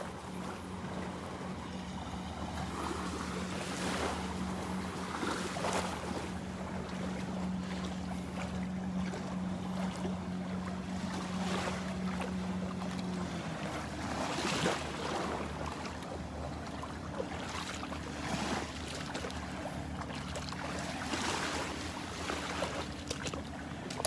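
Steady drone of a motorboat engine out on the water, dropping in pitch about halfway through, with brief rushes of wind noise over it.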